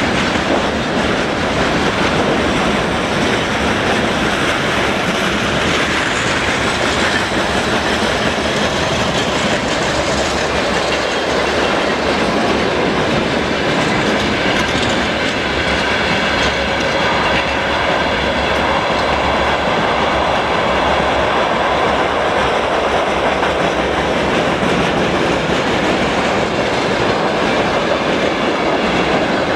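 Freight train running steadily, a continuous noise of wheels on rails. Faint, high, steady whining tones come in about halfway through.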